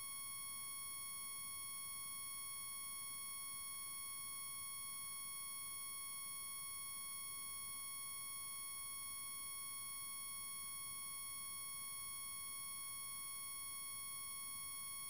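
A steady, unchanging high-pitched electronic tone with a ladder of overtones, held without a break.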